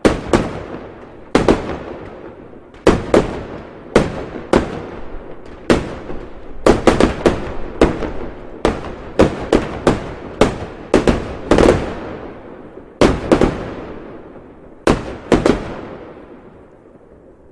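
Fireworks exploding: a long series of loud, sharp bangs at irregular intervals, bunched close together in the middle, each followed by a rolling echo, dying away near the end.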